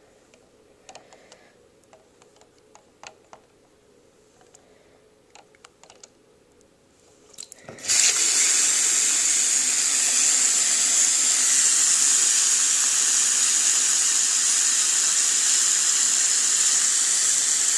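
A few faint light clicks, then about eight seconds in running water starts suddenly and gushes steadily, a loud hissing flow of tap water pouring over and around a Lego model.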